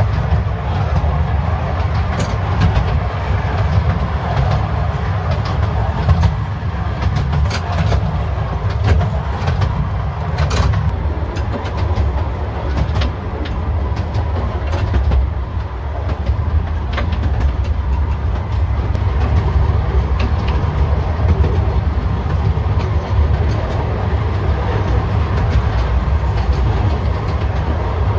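Rumble of a 10¼-inch gauge miniature railway carriage running along the track, heard from inside the carriage, with scattered clicks and rattles from the wheels and bodywork.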